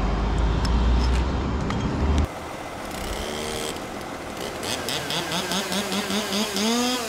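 A heavy engine runs steadily with a deep drone, then cuts off abruptly about two seconds in. A quieter motor takes over, its pitch wavering and then rising and falling, as with a throttle being worked.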